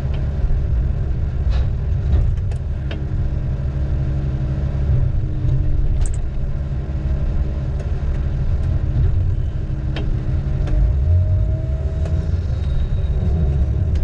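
Diesel engine of heavy logging equipment running steadily, a low rumble with a few sharp clicks scattered over it.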